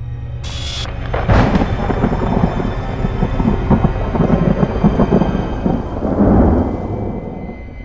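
Thunderclap sound effect: a sharp crack just over a second in, then a long rolling rumble with rain, swelling once more before it fades near the end.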